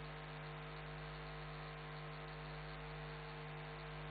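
Steady electrical hum with several pitched lines and no other sound: mains-type hum on the audio feed rather than any sound from the fight.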